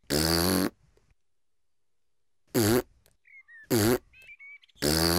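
Four short comic hiccup sounds from a cartoon piglet, about a second apart. The first and last are a little longer; the middle two dip and rise in pitch.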